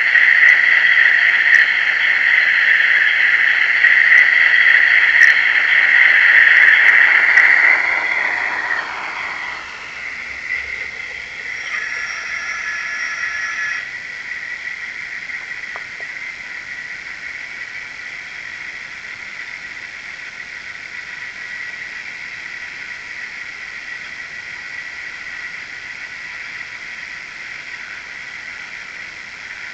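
Model Class 73 locomotive running under DCC sound: a loud hissing sound for the first eight seconds or so that fades away, a brief tone about twelve seconds in, then a quieter steady running noise with a thin steady whine.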